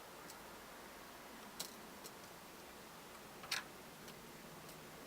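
A few small, sharp clicks and taps of a phone's parts and tools being handled during reassembly, over faint background hiss. The loudest click comes about three and a half seconds in.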